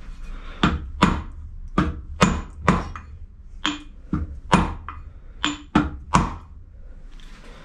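About a dozen sharp hammer blows at uneven intervals on a steel tube used as a drift, driving a tight-fitting pulley down a Bridgeport milling machine's motor shaft past the circlip groove.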